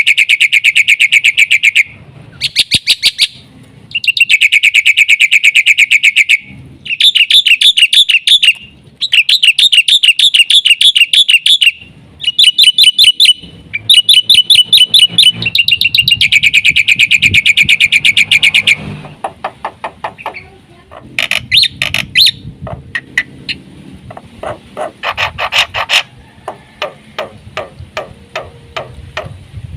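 Black-winged myna (jalak putih) singing loudly in a full song: rapid chattering trills in bursts of one to three seconds, with short gaps between them. In the last third the trills give way to a run of short clipped notes, about two a second.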